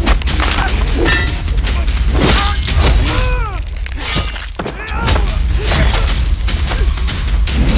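Film fight sound effects: a rapid string of hits, blows and whooshes in hand-to-hand combat, with grunts and cries from the fighters over a steady low rumble.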